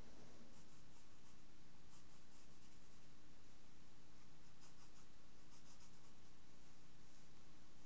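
Pencil scratching on paper as short lines are drawn, in several brief groups of strokes, faint over a steady low hum.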